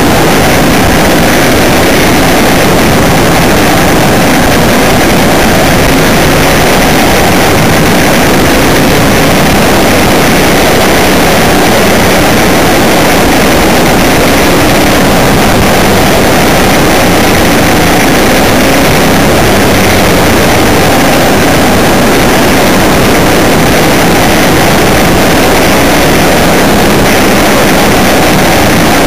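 Vehicle driving on a gravel track, heard from an onboard camera: a steady, very loud mix of engine and wind noise on the microphone, with no breaks or sudden events.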